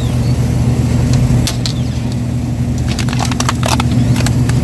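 A plastic vacuum-sealed food bag crackling and crinkling in the hand as it is picked up and handled. There is a run of sharp crackles in the second half, over a steady low hum.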